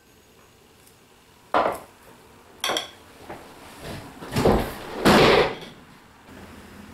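Handling sounds of a dinner plate and a kitchen utensil: two light clinks, the second with a short metallic ring, then two louder knocks a couple of seconds later.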